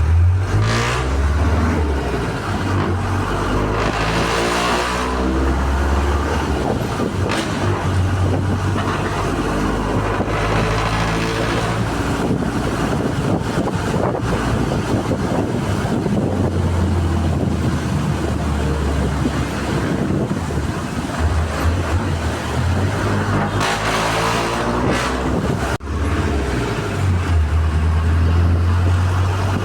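Mitsubishi Lancer Virgo's exhaust through an aftermarket muffler, the engine idling with a deep low note and revved up now and then, most clearly about four seconds in and again near 24 seconds.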